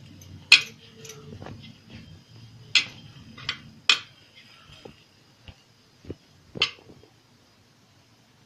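Hands rolling stiff dough into thin ropes on a steel plate: a soft rubbing for the first couple of seconds, with several sharp metallic clinks spread through, as bangles and fingers knock against the plate.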